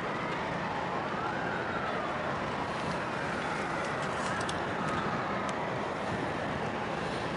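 Steady outdoor background noise with a faint siren wailing behind it, its pitch rising and falling slowly, and a few light clicks about halfway through.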